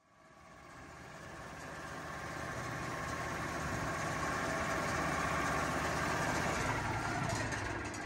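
The engine of a Wood-Mizer LT40 Super Hydraulic portable sawmill running steadily at idle. It rises gradually from near silence over the first few seconds, then holds level.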